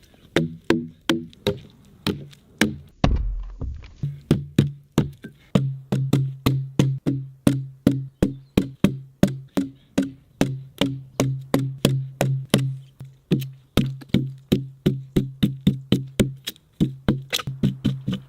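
Background music with a steady knocking beat, about three to four hits a second, over a repeating low bass line, with a deep boom about three seconds in.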